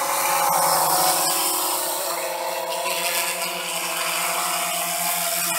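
Quadcopter drone's motors and propellers humming steadily, a constant pitched buzz with no change in speed.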